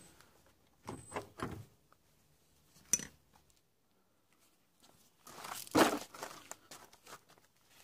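Handling noise from hard parts being moved about: a few light knocks, a sharp click, then a louder spell of scraping and clinking about six seconds in.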